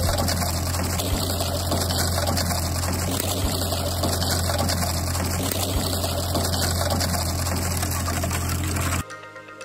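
Fiat 45-66 diesel tractor running steadily while spreading manure: a steady low engine drone under a broad rushing noise. It cuts off abruptly about nine seconds in.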